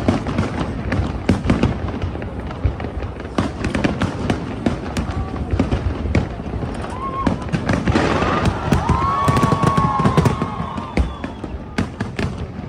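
Fireworks bursting in rapid, continuous succession, a dense run of bangs and crackles. Wavering high tones join in from about seven seconds in and fade near the end.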